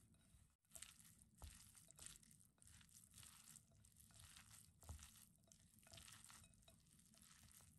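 Faint rustling of hands tossing shredded raw potato in a glass bowl, in irregular light strokes.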